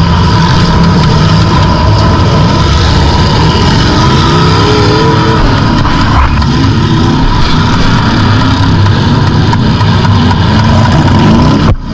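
Demolition derby car's engine running hard and loud, heard from inside the stripped-out cabin, with the revs rising and falling. The sound dips abruptly for a moment near the end.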